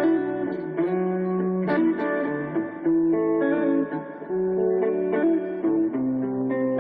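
Hadean EG-462 Stratocaster-style electric guitar played through a Roland Micro-Cube amplifier, letting chords and notes ring and moving to a new one every second or so.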